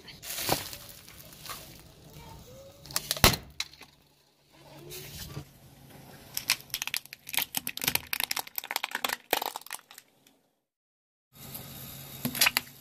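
Plastic objects being crushed under a slowly rolling car tyre: a few separate sharp cracks, then a fast run of cracking and snapping plastic. After a short silent gap, one loud sharp crack near the end.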